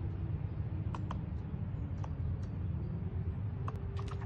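A red squirrel's claws clicking and scratching on tree bark now and then, with a cluster of clicks near the end, over a steady low rumble.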